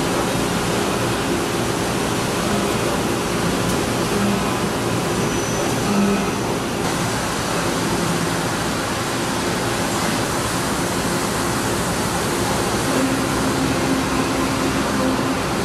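Hwacheon D2-5AX 5-axis CNC machining center milling a titanium (Ti-6Al-4V) hinge under flood coolant: a steady rushing hiss of coolant spray over the low hum of the spindle and cutter.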